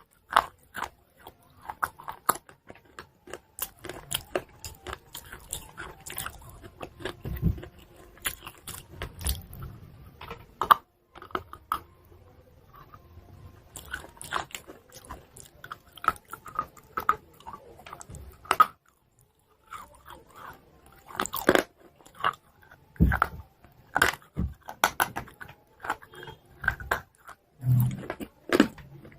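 Close-miked biting and chewing of hard pieces of chalk: sharp crunches and crackles at an uneven pace, with a couple of short pauses.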